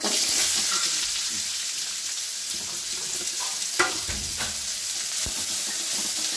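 Chopped onions sizzling as they hit hot oil in a kadai, starting suddenly. The frying hiss holds steady, with a sharp knock of a utensil on the pan about four seconds in.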